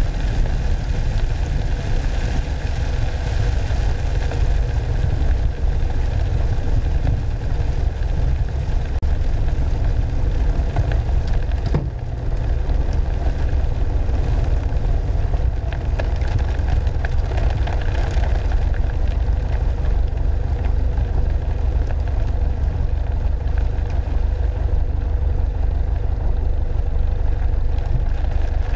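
Cockpit sound of a Piper Archer II's Lycoming O-360 four-cylinder engine and propeller running steadily at low power during the landing rollout on a wet runway. There is one brief click about twelve seconds in.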